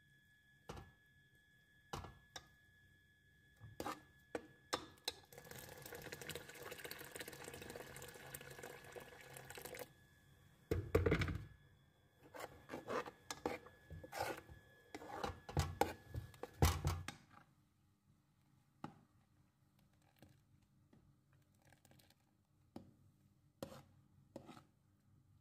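A metal spoon stirring thick, blended lentil soup in a metal cooking pot, scraping and knocking against the pot's sides and bottom. The knocks come irregularly, thickest in a run of louder ones in the middle. They thin to a few faint clicks near the end, and a steady hiss runs for several seconds before that run.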